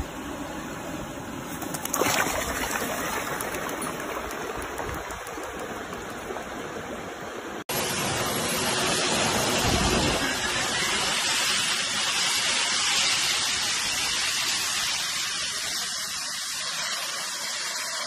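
Jet suit's arm- and back-mounted turbine engines running with a loud, steady rushing noise as the pilot lifts off and flies, starting abruptly about eight seconds in. Before that, a quieter steady rushing noise with one sharp knock about two seconds in.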